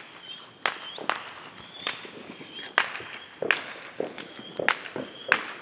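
Footsteps walking at a steady pace, a sharp step about every two-thirds of a second.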